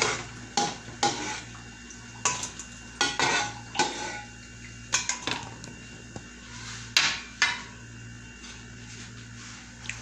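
Metal ladle clinking and scraping against a pan and a stainless steel colander: a string of irregular clanks as fried balls are scooped out and dropped in. A steady low hum runs underneath.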